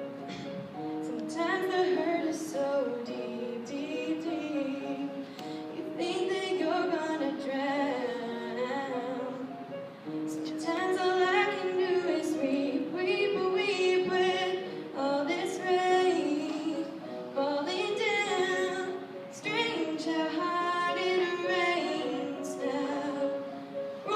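A young girl singing a slow ballad solo over sustained keyboard chords.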